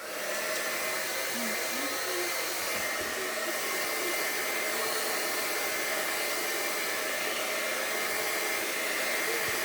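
Xlinder 1875W AC-motor salon hair dryer switched on and running steadily on its low speed. It comes on at once and gives an even rush of air with a faint steady whine.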